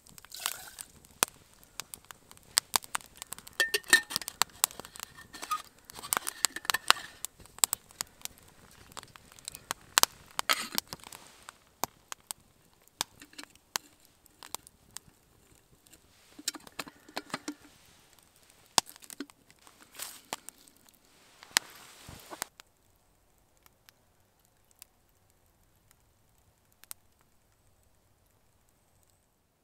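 Wood campfire crackling with sharp pops, mixed with metal clinks as a cast kettle and its lid are handled. About two-thirds of the way through the sound drops to faint, scattered ticks.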